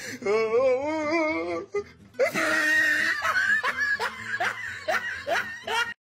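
Laughter: a drawn-out wavering laugh, then from about two seconds in a louder burst of hearty laughing in quick repeated pulses that cuts off suddenly near the end.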